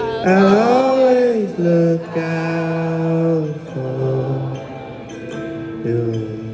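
Live concert performance: a male singer sings a slow line, its first note bending up and back down, then long held notes over soft backing, heard from the audience in a large hall.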